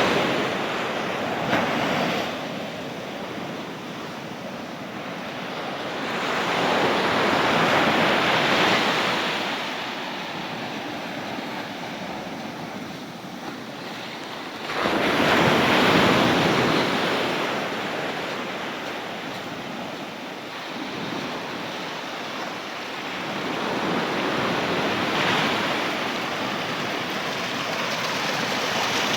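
Atlantic surf breaking on the beach: a continuous wash of water noise that swells and recedes in long surges every several seconds, with one sharp surge about halfway.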